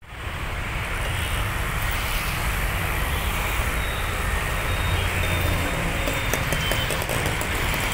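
Steady distant rumble of a Bombardier Dash 8-400 turboprop on its takeoff roll, with a few faint ticks near the end.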